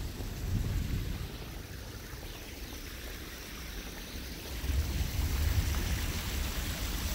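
Strong wind gusting against the microphone: a low, rumbling buffet that swells about half a second in and again from about four and a half seconds in.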